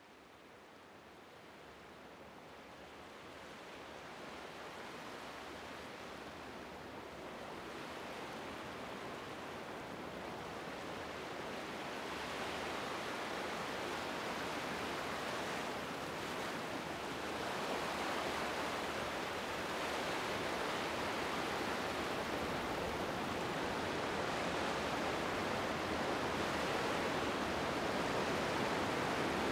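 A steady rushing noise, like static or surf, that fades in from near silence and swells gradually louder throughout, with no tone or rhythm in it.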